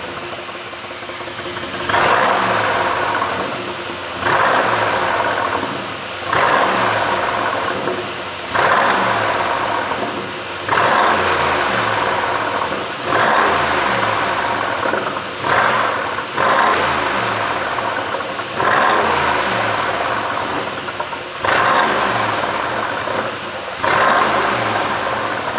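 2018 Mercedes-Benz G500 4x4²'s twin-turbo V8, with an ECU "pop tune", revved repeatedly while standing. There are about eleven sharp blips, roughly every two seconds, each falling back to idle.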